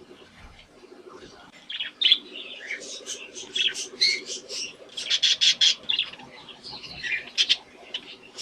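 Budgerigars chirping and chattering: a quieter warble at first, then a dense run of short, sharp chirps from about two seconds in until near the end.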